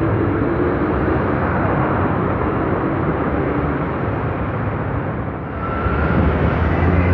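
Steady rumble of road traffic and a moving vehicle's running noise, growing louder a little past halfway as traffic passes close.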